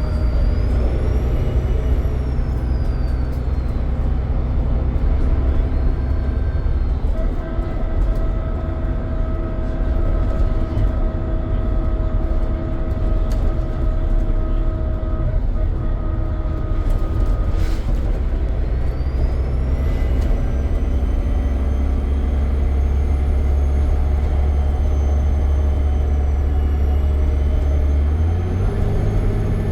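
Dennis Trident double-decker bus's diesel engine running under way, with a high turbocharger whistle rising and falling above the engine note. The engine note shifts near the end.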